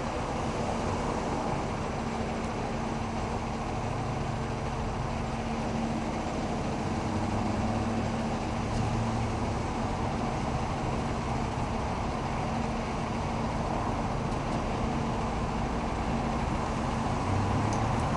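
Steady road traffic noise from vehicles on the street, with a constant low hum underneath.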